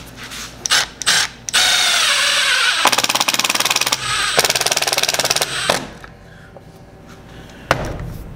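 Milwaukee Fuel cordless impact driver driving screws into oak strips. A few short trigger blips, then the motor spins steadily, and twice it breaks into a rapid hammering rattle as the impact mechanism kicks in to seat a screw. A single knock comes near the end.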